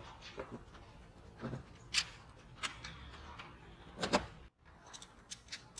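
Scattered light clicks and knocks of metal sword-hilt parts being handled and fitted together during reassembly, the loudest about two seconds in and another just after four seconds.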